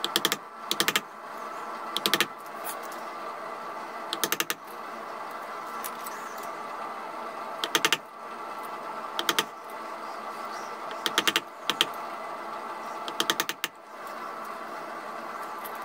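Carving chisel driven straight down into a wooden gunstock to make stop cuts along the outline of a relief carving: short clusters of three or four sharp taps every second or two. A steady hum runs underneath.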